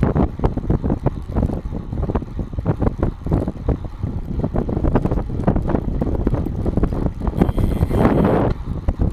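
Wind buffeting the microphone of an action camera mounted under a road bike's saddle, with tyre and road noise and frequent irregular knocks as the bike rolls over asphalt. A louder hiss swells briefly near the end.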